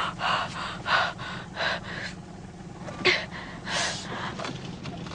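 A frightened child gasping and breathing hard, about six sharp breaths in a few seconds, over a low steady hum.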